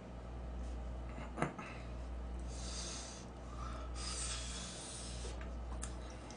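A person eating noodles: two hissing slurps, the first about two and a half seconds in and the second a little past four seconds, over a steady low electrical hum.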